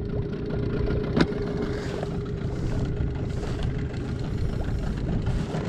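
Small boat motor running at a steady pitch, with a low rumble under it and one short knock about a second in.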